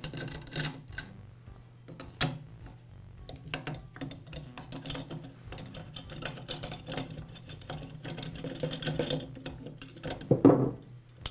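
Screwdriver turning out the steel screws that hold a chainsaw muffler to the cylinder, a run of small metal clicks and scrapes. About ten seconds in there is a louder metallic clatter as the loosened muffler is pulled free.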